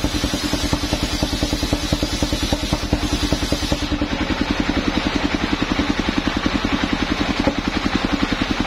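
Engine-driven homemade circular sawmill running, its engine chugging with rapid, even pulses while the blade cuts along a log. The high cutting hiss drops away about four seconds in as the blade comes out of the wood.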